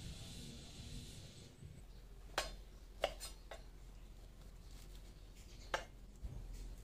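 Four scattered sharp knocks of a kitchen knife on a wooden chopping board while green chilies are cut. A steady high hiss fills the first second and a half.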